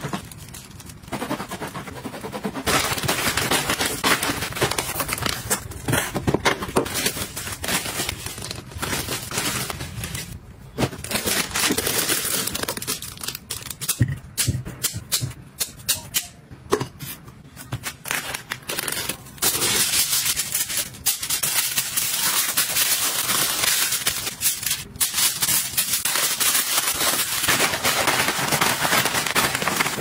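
Close-up kitchen food-prep handling sounds: plastic gloves and bags crinkling, a knife cutting through bagels, and kitchen scissors snipping grapes off the stem, with many sharp clicks and rustles. Things go sparser in the middle, then dense again in the last third.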